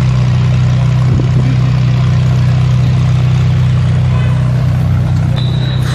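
Ferrari 458 Speciale's V8 running steadily at low revs as the car pulls slowly away, a constant low hum with no revving.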